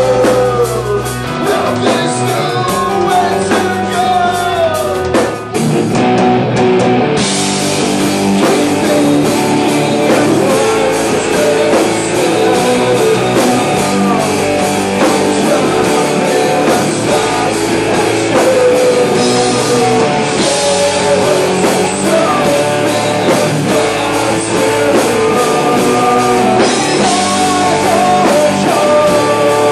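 Live rock band playing: electric guitars, bass and drum kit, with a voice singing. A short drop about five seconds in, then the cymbals come in harder from about seven seconds.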